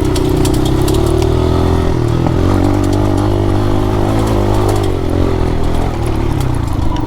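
Dirt bike engine running at moderate revs while riding a rough off-road trail, its pitch rising and falling gently with the throttle. Clattering and rattling from the bike over uneven ground runs through it.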